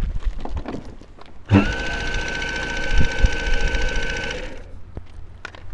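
Model Cessna's motor and propeller run up briefly: a steady whirring whine that starts sharply about a second and a half in and cuts off about three seconds later.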